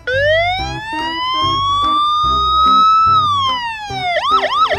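Electronic police siren: one slow rising wail that falls away after about three seconds, then switches to a fast warbling yelp of about three to four cycles a second.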